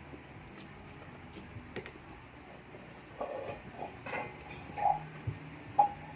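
Eating sounds from chicken feet adobo being chewed: small scattered clicks and mouth noises, with a few short, louder sounds in the second half.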